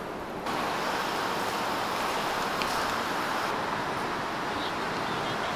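Steady city street noise of traffic and the general hum of a busy road. It starts abruptly about half a second in, after a quieter stretch.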